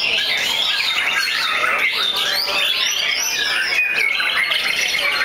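Several caged white-rumped shamas singing at once, their rich whistled phrases and rapid pitch glides overlapping without a break.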